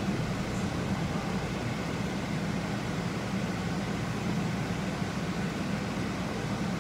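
Steady low hum with an even hiss from a gas stovetop where a pot of lentils and vegetables is boiling.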